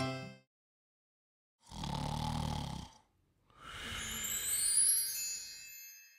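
Cartoon snoring sound effect: a rough snore about two seconds in, then a longer breathy exhale with a whistle rising in pitch that fades out near the end. The last notes of a children's song die away at the very start.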